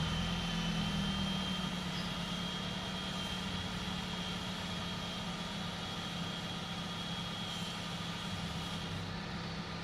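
Toyota Celica's 1.8 VVT-i four-cylinder engine settling to a steady idle, with a thin high whine running over it. The engine runs lean with code P0171, which the owner suspects is a vacuum leak.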